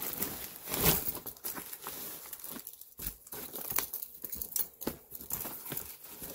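A canvas and leather rucksack and its plastic wrapping being handled: irregular crinkling and rustling, loudest about a second in.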